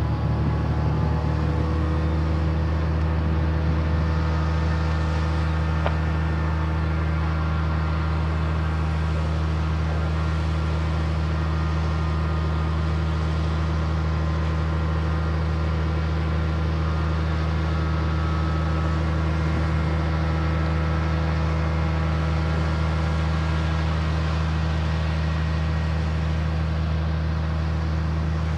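Liebherr LTM 1500 mobile crane's diesel engine running steadily at constant speed while the crane works its lattice jib, with a faint higher whine over the low drone.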